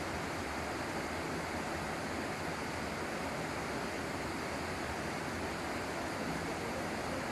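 Steady rush of a fast river pouring over a low weir and running through shallow rapids.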